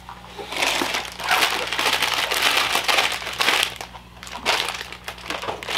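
Plastic packaging crinkling and rustling as it is handled: a long stretch, then a shorter one about four and a half seconds in.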